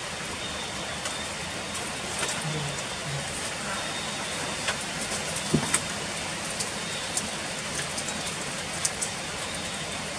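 Heavy rain falling steadily, a dense even hiss with scattered sharp drips ticking through it.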